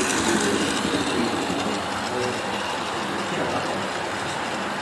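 HO scale model train coaches rolling past close by, with a steady rolling noise of their wheels on the rails.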